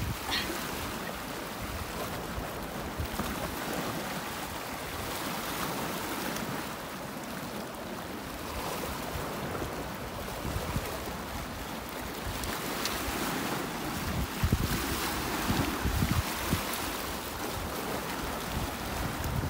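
Wind buffeting the microphone over small waves washing against the rocks of the shoreline, with heavier gusts of rumble about three quarters of the way through.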